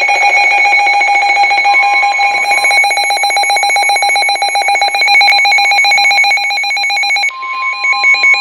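NOAA Weather Radio alert tones: a loud electronic alarm of fast pulsing beeps. About seven seconds in the pattern changes and a steady high single tone, the weather alert tone, comes to the fore.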